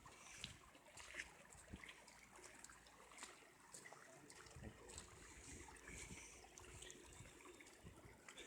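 Faint floodwater running along the street, with scattered small clicks and taps over it.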